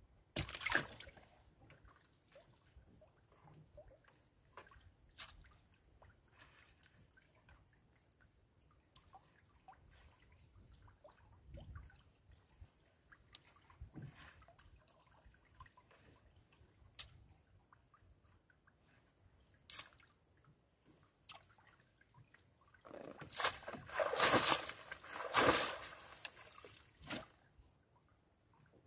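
Water dripping and splashing as a wet fishing net is hauled hand over hand into a small boat, with scattered light knocks and rustles. A louder flurry of splashing comes near the end.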